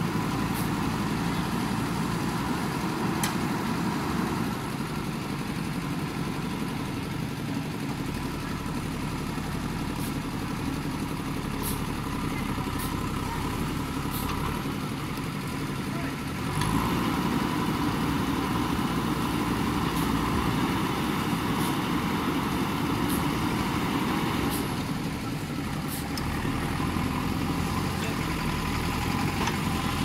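JCB 3DX backhoe loader's diesel engine running steadily while the backhoe arm digs, louder from about halfway through, with scattered sharp clicks.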